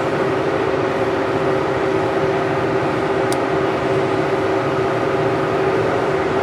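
Steady background machine hum, like a fan or air-conditioning unit running, with a single light click about three seconds in.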